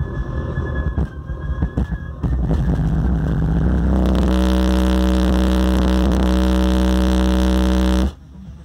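A wall of DS18 subwoofers in an SPL competition car, driven by a SounDigital amplifier, playing a loud, steady, very deep bass tone: an SPL burp. It comes in about two seconds in, swells stronger, holds for several seconds and cuts off suddenly.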